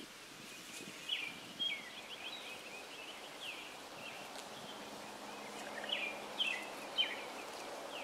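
A songbird singing in quick, repeated high chirps. About halfway through, a low steady buzz comes in beneath it, bees working the flowering holly.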